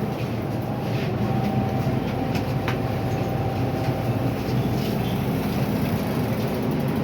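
MTR M-Train metro car running along the track, a steady rumble of wheels on rail with a faint steady whine and a few sharp clicks.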